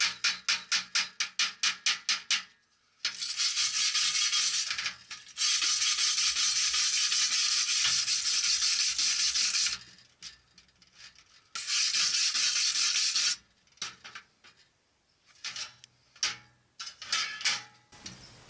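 Wire-feed welder arc crackling and hissing on thin sheet steel in several runs: a fast, even stutter for the first couple of seconds, a long steady burn from about three to ten seconds in, a shorter one around twelve seconds, and a few brief spurts near the end. The welder afterwards judges his wire speed a little too fast.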